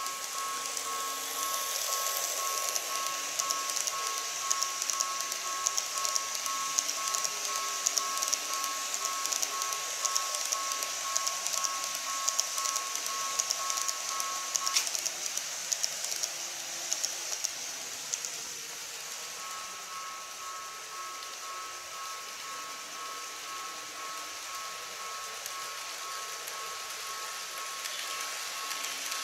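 Model train of an EF81 locomotive and 14 series coaches running on sectional track: a fast, fine rattle of small wheels over the rail joints, fading about two-thirds of the way in. A steady high whine runs with it, breaks off about halfway and returns a few seconds later.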